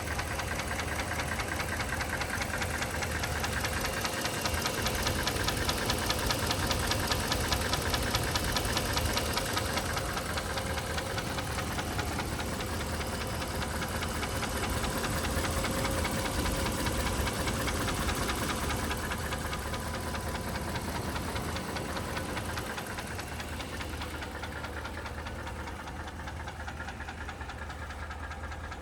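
2012 Ram 1500's 5.7 L Hemi V8 running with a fast, steady ticking over the engine note. The owner takes the tick for either lifter tick or an exhaust manifold leak.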